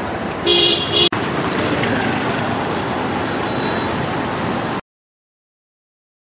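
Street traffic noise with one short vehicle horn honk about half a second in. The sound cuts off to complete silence about five seconds in.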